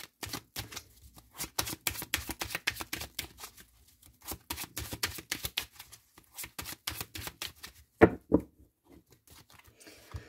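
A deck of oracle cards being shuffled by hand: quick runs of crisp flicks as the card edges slip past one another, with short pauses between runs. Two louder knocks come about eight seconds in.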